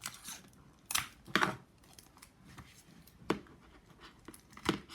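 Paper being handled, making about four short, separate rustles.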